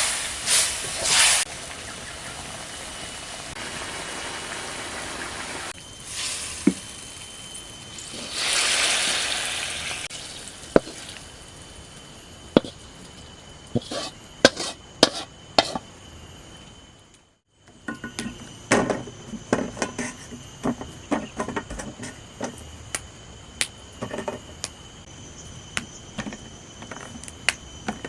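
Food frying in a pan, with a spatula or utensil repeatedly clicking and knocking against the pan as it is stirred. A louder stretch of sizzling comes about eight seconds in.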